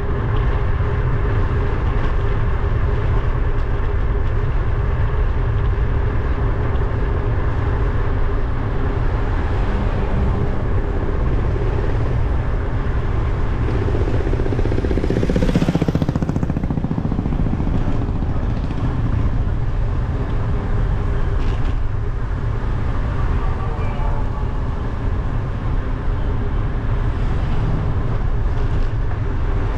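Steady wind rumble and road noise on a GoPro action camera riding along on a moving bicycle. About halfway through, a vehicle passes, swelling louder and falling in pitch.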